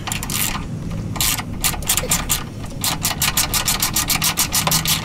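Ratchet wrench on a socket extension clicking rapidly as it works a chassis bolt loose, several even clicks a second, after a second or so of metal scraping as the socket goes on.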